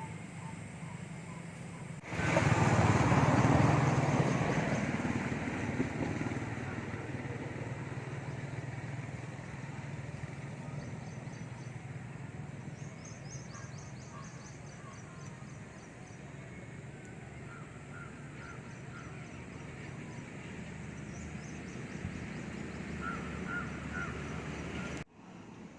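A motor vehicle passes close about two seconds in, loud at first and fading over several seconds, over a steady low traffic hum. Birds chirp in short, rapid trills in the second half.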